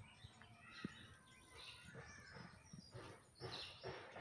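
Near silence: faint bird chirps in the background.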